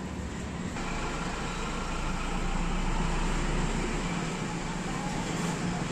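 Steady background noise with a low hum, growing a little louder about a second in.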